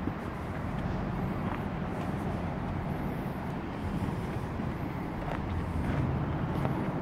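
Steady low rumble of road traffic, with a few faint footsteps on the dirt path.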